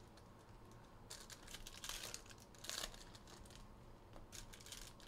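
Faint rustling and clicking of a stack of trading cards being handled and sorted by hand, with a few louder rustles about one, two and nearly three seconds in.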